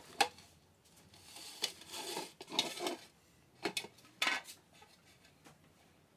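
A metal cookie tin clattering, knocking and scraping on a tiled floor as a toddler handles it, with the sharpest knocks about four seconds in.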